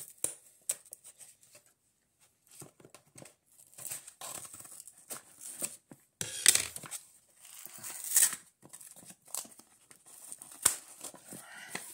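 Scissors cutting into a cardboard package, with cardboard and packaging crinkling and tearing in irregular bursts. A sharp click comes near the end.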